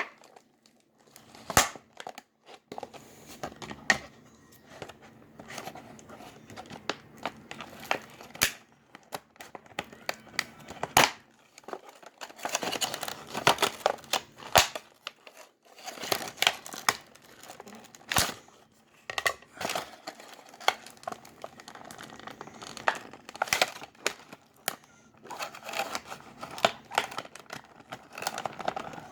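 Plastic and cardboard toy-figure packaging being worked open by hand: irregular crinkling and tearing with occasional sharp clicks and snaps.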